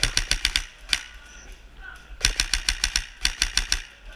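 Airsoft rifle firing rapid full-auto bursts of sharp cracks: one short burst at the start, a single shot about a second in, then two more short bursts a second apart.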